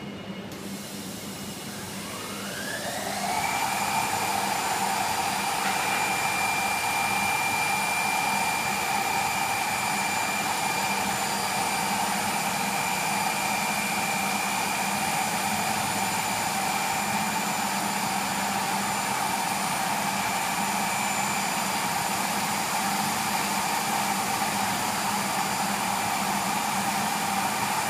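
Motor on the AKUshaper CNC surfboard shaping machine, plausibly the spindle of the cutter disc, spinning up with a rising whine about two to three seconds in, then running steadily at speed with a high whine over a hum.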